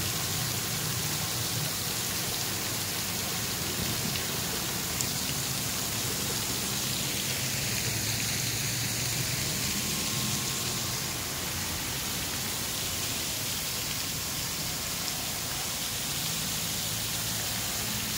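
Steady splashing hiss of a small pond fountain's jet of water falling back onto the pond.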